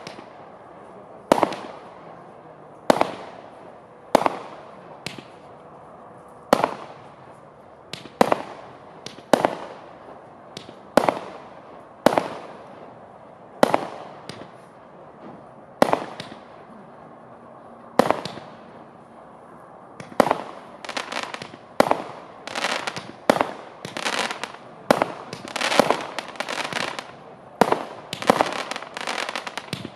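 A 192-shot, 20 mm fireworks cake (Klasek Fireworks Show 192) firing. Sharp bangs come about one every second and a half, then about two-thirds of the way through they turn into a fast, dense run of several shots a second.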